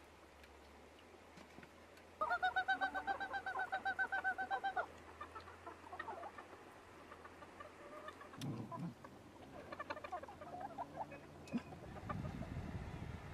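Chickens clucking: a hen gives a rapid run of clucks for about two and a half seconds, then scattered shorter clucks follow.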